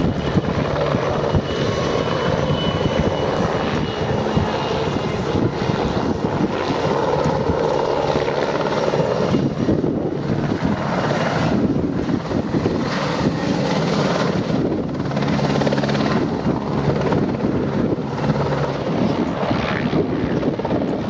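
PZL W-3A Sokol helicopter in flight: the main rotor beating steadily over the whine of its twin turboshaft engines as it flies a low display pass and comes down to hover just above the ground near the end.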